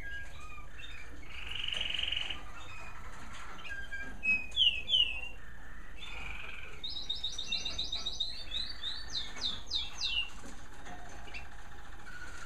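American Singer canaries singing. Their varied song moves from a rolling trill to a few sharp, loud falling notes, then to a long, fast run of rapidly repeated notes that ends in downward sweeps.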